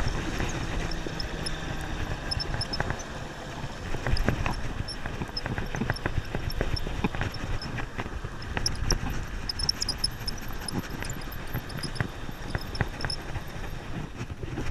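Surf washing and wind noise, with light, irregular clicks and ticks from a Penn Squidder conventional surf reel being handled and cranked.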